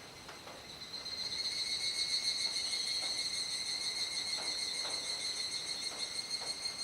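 Chorus of cicadas singing, a steady high-pitched ringing buzz that swells louder about a second in.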